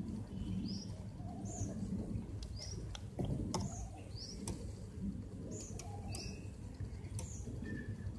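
A small bird chirping over and over: short, high, upward-curving chirps about once a second, over a steady low background rumble, with a few sharp clicks around the middle.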